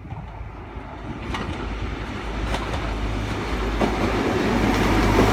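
A High Speed Train (InterCity 125) arriving, led by a class 43 diesel power car. The engine and wheel noise grow steadily louder as it approaches, with a few sharp clicks of the wheels over rail joints.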